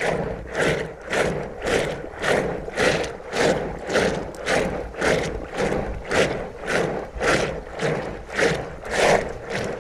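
Curd being churned in a steel pot with a rope-driven wooden churning stick: a rhythmic sloshing and swishing, about two strokes a second, as the stick spins back and forth with each pull of the rope.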